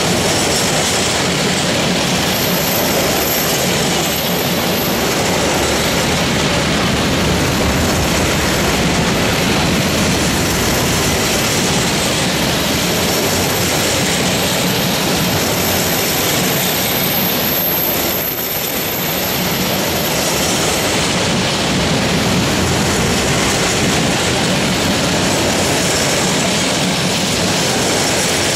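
A long freight train of sliding-hood covered wagons rolling steadily past at close range: a continuous rumble of wheels on rail, with a thin high-pitched squeal over roughly the first two thirds.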